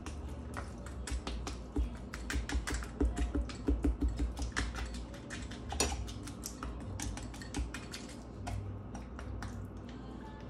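Rapid, irregular clicking of a small kitchen knife's tip striking a wooden cutting board as raw duck is jabbed and trimmed, several clicks a second, thinning out near the end.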